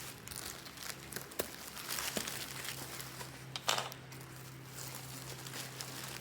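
Plastic packaging crinkling and rustling as it is handled and opened, with a few light ticks and a louder rustle about two-thirds of the way through. A faint steady low hum runs underneath.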